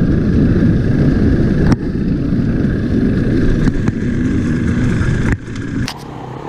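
Enduro dirt bike engine running under way, heard from an on-board camera with wind rushing over the microphone and a sharp knock about two seconds in. About five seconds in it drops suddenly to a much quieter background.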